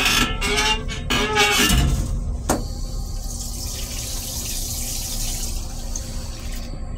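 Railcar toilet flushing: a click about two and a half seconds in, then a hiss of rushing blue flush water into the stainless steel bowl for about four seconds that cuts off near the end, over the steady rumble of the moving train. A squealing sound in the first two seconds is the loudest part.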